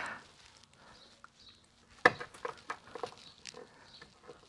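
A sharp click about two seconds in, then several lighter clicks and knocks, as hands work a parking-light bulb holder back into the headlight housing behind a car's grille.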